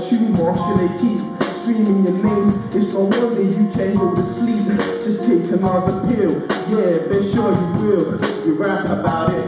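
Live song performance: a voice singing into a microphone over a steady drum beat.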